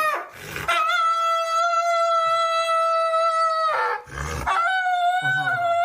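A dog howling in long, steady notes: one howl held about three seconds, a short breath, then another that wavers in pitch near the end.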